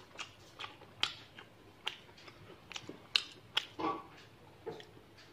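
Close-up chewing of crunchy raw vegetables: a string of sharp, irregular crunches and mouth clicks, with a brief voice sound about four seconds in.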